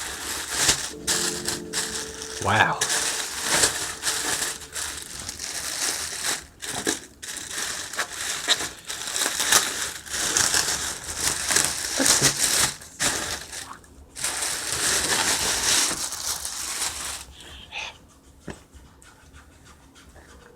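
Packaging crinkling and rustling in irregular bursts as a jacket is unpacked and handled, dying down over the last few seconds.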